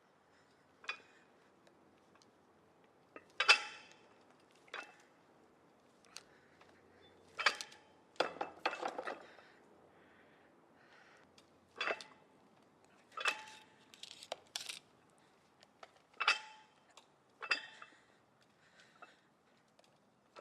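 Metal gym weights clanking at irregular intervals, about a dozen sharp knocks with a short metallic ring, as they are set down or knocked together. A faint steady room hum lies underneath.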